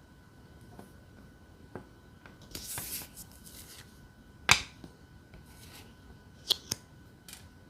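Tarot cards being handled on a table: a brief brushing slide, then a few sharp taps and clicks as cards are set down, the loudest about halfway through and two quick ones near the end.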